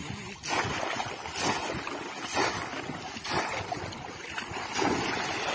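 Water splashing and pouring as a conical bamboo fish trap is lifted and plunged repeatedly into shallow water, with four louder splashes about a second apart.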